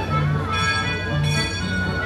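Background music with a steady bass beat and sustained notes, played over the riverboat's loudspeakers between narration.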